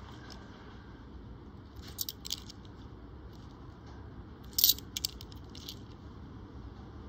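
Australian one-dollar coins clinking against each other while being handled: a couple of light metallic clicks about two seconds in, then a louder cluster of clinks a little past the middle.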